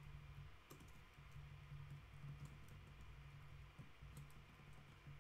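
Faint typing on a computer keyboard: scattered key clicks over a low, steady hum.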